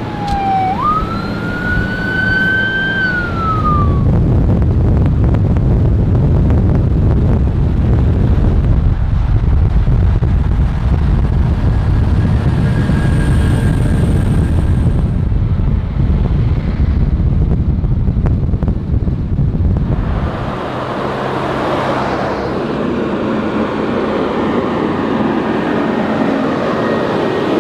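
A siren wails briefly at the start, rising then falling in pitch. Then heavy military trucks in a convoy drive past on a highway with a steady low rumble, which gives way to a lighter, higher road noise about twenty seconds in.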